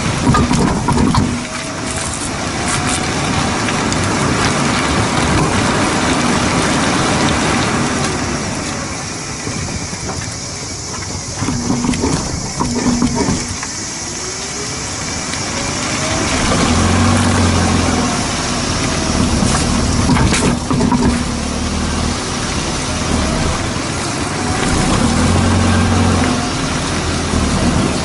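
Tyre and road noise of a car driving, heard from under the car beside the rear wheel, with wind rushing over the microphone. The noise swells and fades with a few low thumps and faint rising-and-falling tones now and then.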